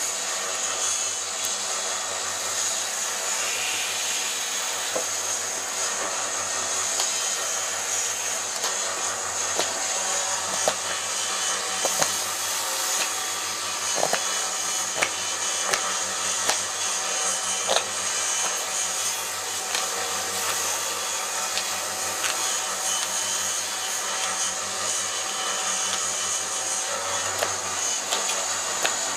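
Electric bench sander running steadily, its motor and abrasive giving a constant whooshing hum, with sharp clicks of a puukko knife cutting into birch now and then, several of them in the middle.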